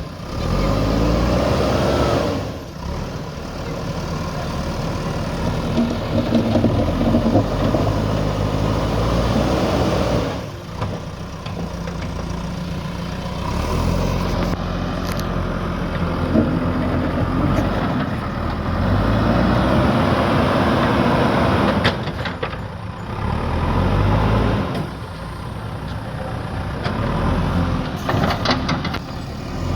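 Diesel engine of a JCB backhoe loader working under load, its pitch rising and falling over and over as it is revved and eased off, with a few sharp knocks in the middle and near the end.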